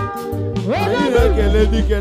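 Music: a song with a heavy, steady bass line, and a singing voice that comes in about half a second in.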